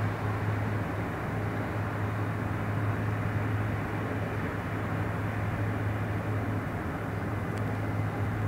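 Steady running noise heard from inside the carriage of a Sydney Trains S set double-deck electric train, with a steady low hum under an even rumble.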